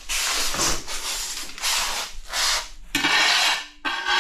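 Hand scraping strokes against a ceramic tile, a coarse rasping hiss repeated about once a second, with a shorter, ringing scrape about three seconds in.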